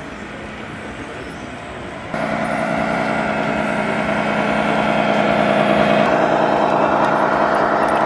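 Simulated diesel truck engine sound from a radio-controlled scale semi truck's sound module, running steadily. About two seconds in it switches to a louder, steady engine drone.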